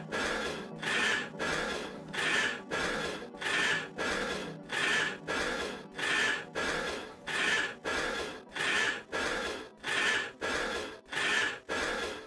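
A steady rhythmic swishing, about three strokes every two seconds, each stroke a short noisy rasp.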